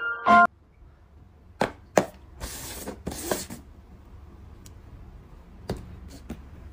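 Light paper cups tapped down and slid on a tabletop: a couple of sharp taps, two short scraping swishes, then two more taps. A piano-and-glockenspiel melody cuts off about half a second in.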